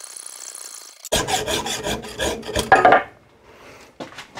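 Hand hacksaw cutting through a 4140 steel rod held in a lathe chuck, the blade scraping steadily with a high ringing. About a second in it gives way to about two seconds of louder, irregular clattering and rubbing, with a single knock near the end.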